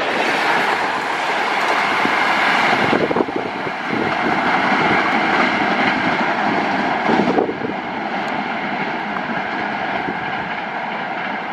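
Tail end of an express passenger train passing at full speed: a loud rushing of the last coaches, which carries on as the train draws away and turns to a steadier, duller rush about seven seconds in.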